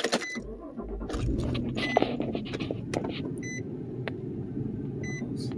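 2005 Nissan Xterra's V6 engine started with the key, catching within about a second and then idling steadily. A dashboard warning chime rings four times at an even pace over the idle.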